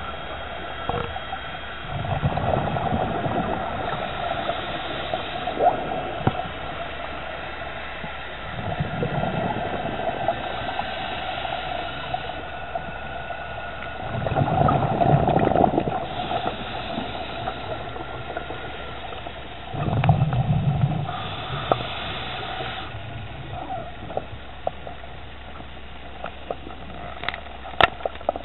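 Scuba diver breathing through a regulator underwater: a hissing inhale through the demand valve, then a gurgling burst of exhaled bubbles, four breaths about six seconds apart.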